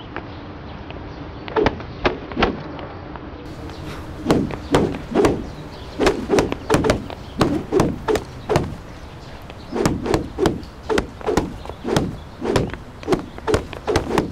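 Repeated sharp whacks of a thin stick swung hard in a wrist-strength drill. A few spaced strikes come first, then after about four seconds a steady run of about two a second.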